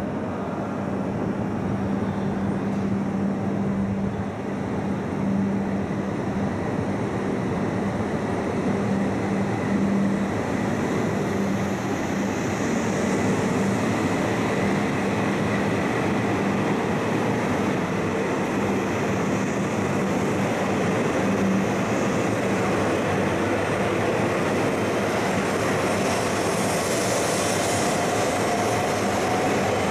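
Shinkansen bullet train running past the platform: a continuous rumble with a low hum, and a whine that slowly rises in pitch over the last few seconds.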